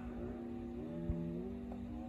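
Strings of an Epiphone hardtail electric guitar ringing on after a strum, their pitch sliding upward in small steps a few times, over a steady low hum. A soft knock comes about a second in.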